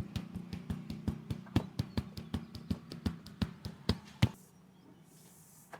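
Barber's hands rapidly slapping and tapping on a head in a percussive massage, about five quick strikes a second over a steady low hum, stopping suddenly about four seconds in.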